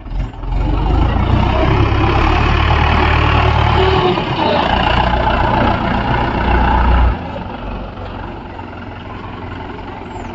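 Mahindra 415 DI tractor's diesel engine revving up suddenly and running loud and steady for about seven seconds, then dropping abruptly to a quieter, steady run.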